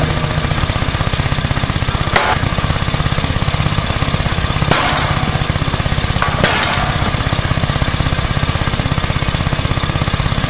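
Heavy machine running with a fast, even hammering chatter, broken by sharp cracks about two, four and a half, and six and a half seconds in.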